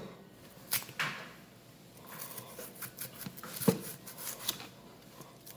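Kitchen knife slicing thin pieces off an apple and knocking on the cutting board: a few sharp knocks with lighter ticks and scrapes between.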